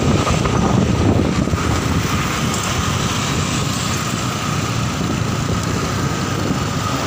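Wind buffeting the microphone and road and traffic noise from riding on a moving motorcycle, a little louder in the first second or two.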